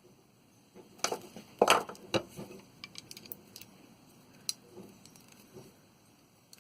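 Small metal parts of a disassembled water heater pressure relief valve clinking and knocking as they are handled. There is a cluster of sharp knocks about one to two seconds in, then lighter scattered ticks.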